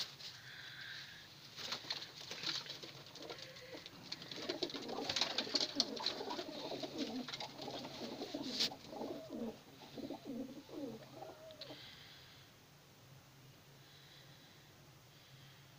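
Domestic pigeons cooing: a run of low, repeated coos from about four seconds in until about twelve seconds, mixed with scattered rustles and clicks, then quieter.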